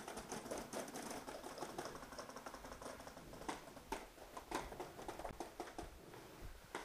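Rapid strings of paintball marker fire, about ten shots a second, with a few louder single cracks around the middle.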